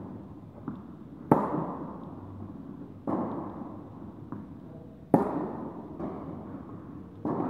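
Tennis rally in an indoor hall: four racket strikes on the ball about two seconds apart, alternating between a loud, sharp hit close by and a duller hit from the far end of the court, each echoing through the hall, with lighter ball bounces in between.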